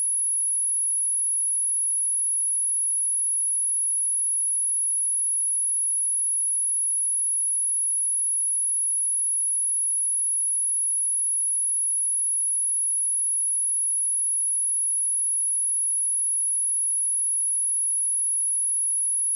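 A pure 10514 Hz sine-wave test tone, a single steady very high-pitched whistle that holds constant in pitch and loudness.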